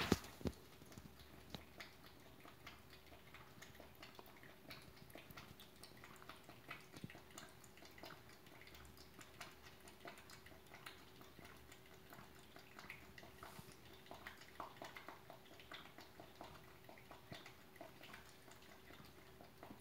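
Cat eating from a small dish: faint, irregular clicks and smacks of its chewing, with one sharper click right at the start.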